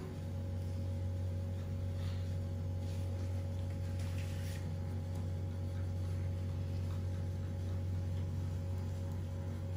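A steady low hum that holds level throughout, with a couple of faint brief clicks.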